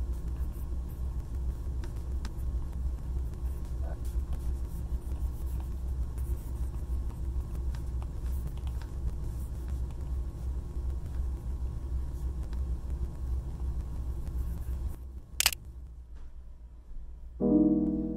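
Apple Pencil tip scratching and tapping on a matte screen protector on an iPad while drawing, faint over a steady low rumble. Near the end the rumble stops, a single sharp click sounds, and soft piano music begins.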